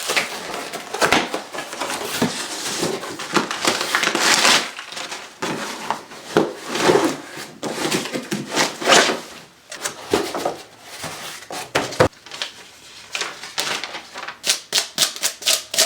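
Packaging of a newly delivered skateboard deck being torn open and crumpled, rustling and crackling in irregular spurts. Near the end comes a quick run of sharp clicks.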